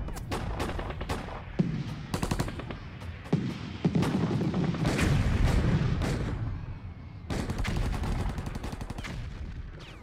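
Battle sound effect of rapid rifle fire in bursts, with a few louder single shots standing out; it fades out near the end.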